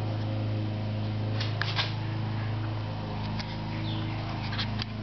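A steady low hum, with a few light clicks and taps about one and a half seconds in and again near the end.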